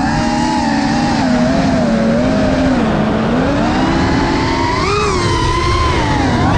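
FPV freestyle quadcopter's 2207.5-size 2550KV brushless motors and propellers whining as recorded onboard, the pitch sagging and rising with the throttle, with a sharp rise about five seconds in, over a rush of air noise.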